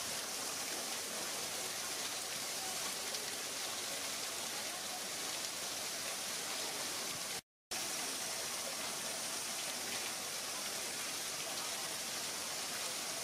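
Steady rush of running water, an even hiss with no separate splashes, cut off by a brief dropout to silence about halfway through.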